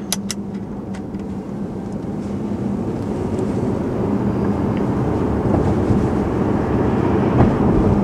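Tesla Model S on the move: tyre and road noise with a steady low hum, slowly growing louder as the car gathers speed. No suspension rattle stands out.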